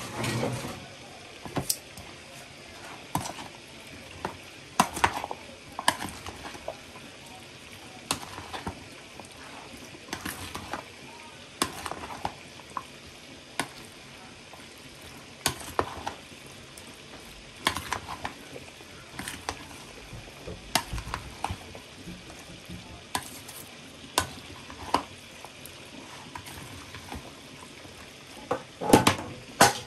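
A spoon stirring and scraping in a pot of sizzling food, with irregular clicks and knocks against the pot about once or twice a second over a steady frying hiss.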